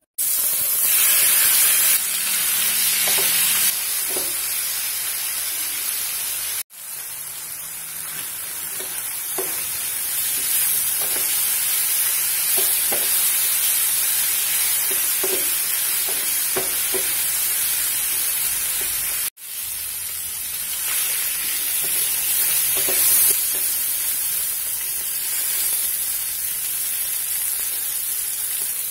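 Marinated chicken pieces sizzling loudly as they fry in hot oil in a nonstick pan, with a wooden spatula stirring and knocking against the pan now and then. The sizzle cuts out briefly twice.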